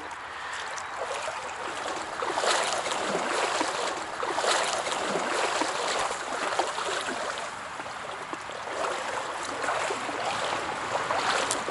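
Stream water rushing and sloshing, an uneven splashing noise that swells and eases.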